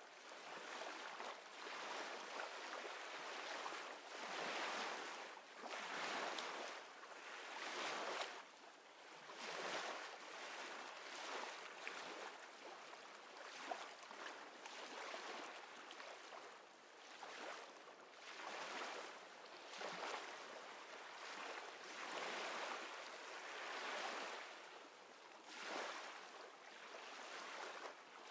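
Ocean surf: soft rushing swells of waves washing in and out, rising and fading about every two seconds.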